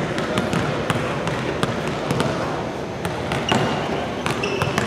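Basketballs bouncing on a hardwood gym floor, irregular sharp thumps several times a second, over a steady hubbub of voices echoing in the gym, with a couple of short high squeaks in the second half.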